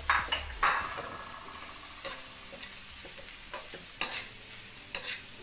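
Shredded chicken frying in a steel wok, sizzling steadily, while a metal ladle stirs it and scrapes against the pan. The sharpest scrapes come just after the start and about four and five seconds in.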